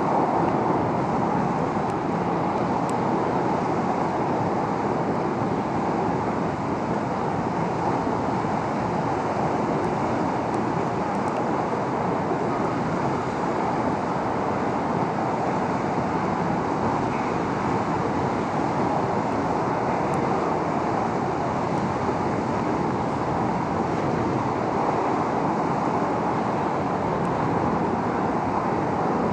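Large car ferry Azalea's machinery running steadily as she pulls away from the quay, with water churning along her hull.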